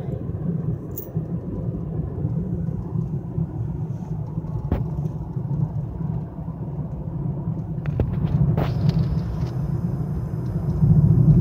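Road noise inside a moving car's cabin: a steady low rumble of tyres and engine that grows louder near the end, with a few faint clicks.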